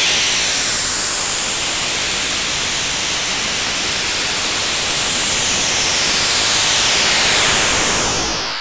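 Synthetic hiss made for tinnitus masking, spread evenly from low to very high pitches, its colour slowly sweeping up and back down. It fades away near the end.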